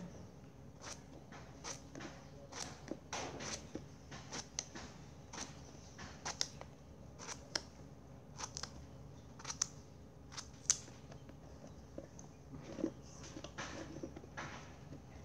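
A small knife cutting chunks off a peeled gourd held in the hand, with faint, irregular short clicks and taps, about one or two a second, as the blade cuts through and the pieces drop into a stainless steel bowl.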